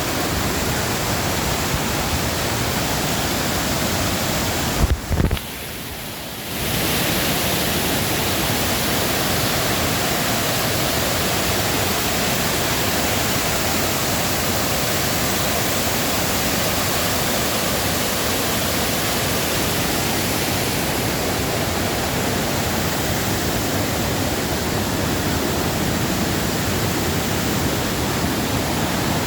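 Steady, even rushing noise. About five seconds in come two brief thumps, and the rush drops away for about a second and a half before returning.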